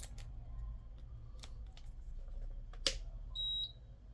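A short, high electronic beep from the Sugon T61 soldering station's buzzer, about three seconds in, over a steady low hum and a few sharp clicks.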